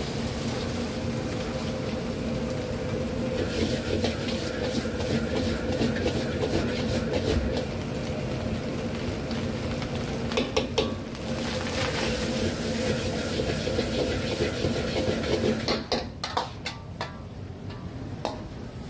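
Stir-frying in a wok: a metal ladle or spatula clacks and scrapes against the pan over steady sizzling, under a steady hum. The sizzling and hum drop away near the end, leaving a few clacks.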